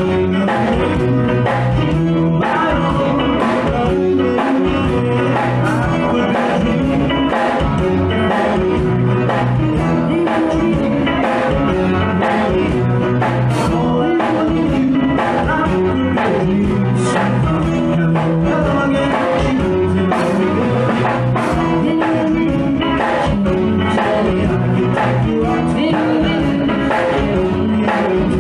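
A live band playing a song: singing over acoustic guitar and keyboard with a steady beat.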